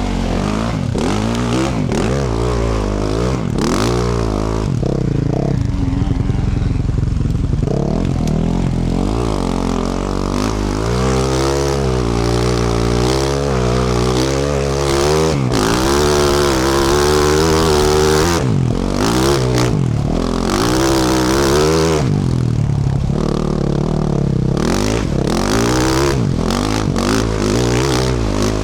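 2024 Yamaha YZ450F's 450 cc single-cylinder four-stroke engine, through a Yoshimura RS-12 exhaust and heard close to the exhaust, revving up and down as the dirt bike is ridden off-road. The revs rise and fall every second or two, with clatter and knocks from the bike over rough ground.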